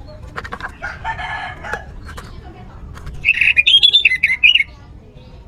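Orange-headed thrush (anis merah) singing: a scratchy, buzzy phrase in the first second or so, then a louder, fast-warbling high phrase about three seconds in that lasts over a second.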